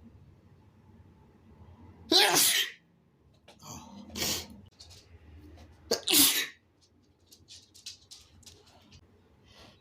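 A person sneezing hard twice, about four seconds apart, with a smaller burst between the two sneezes and faint short clicks afterwards.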